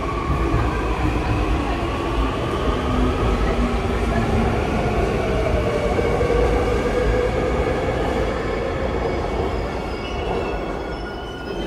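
Seoul Subway Line 2 electric train moving along the platform, its traction motors whining in several tones that slowly shift in pitch over a steady rumble of wheels on rails. The sound fades over the last couple of seconds.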